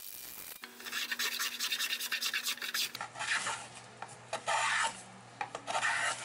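Hand plane shaving the edges of a cedar box half, squaring them so the lid and base close tight: a run of quick strokes, then several slower, longer ones.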